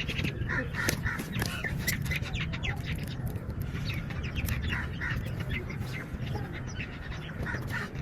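Birds calling in many short, quick notes over a steady low rumble, with a few sharp clicks.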